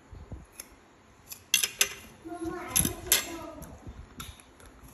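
A few sharp clicks and clatters of small objects being handled, loudest in two clusters about a second and a half and three seconds in, with a brief voice sound alongside the second.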